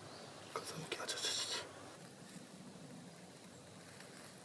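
An old lighter being struck: a few scraping clicks of the flint wheel and a short hiss about a second in. The lighter may be damp.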